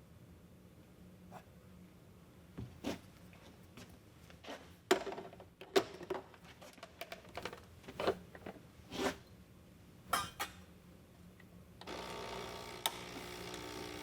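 Clinks and knocks of an espresso portafilter and tamper being handled and locked in, loudest about five and six seconds in. About twelve seconds in, the Solis Barista Perfetta's pump starts with a steady hum as the brew begins.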